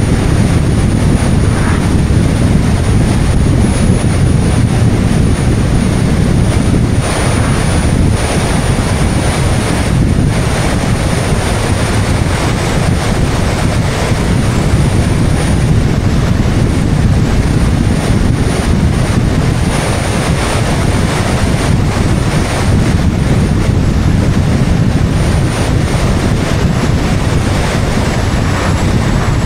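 Wind rushing over the microphone of an action camera mounted outside a moving car, together with road and tyre noise. The noise is loud and steady, swells briefly a few times, and carries a faint high whine throughout.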